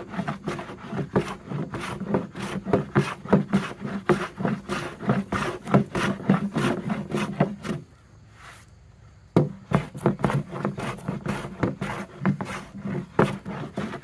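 A hand plane taking a series of short, quick strokes across a pine board against the grain, its iron retracted for a light cut over rough grain. The strokes stop for a second or so about eight seconds in, then start again.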